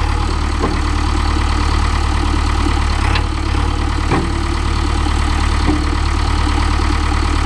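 Diesel engine of a farm vehicle idling steadily with a low rumble, with a few faint clicks over it.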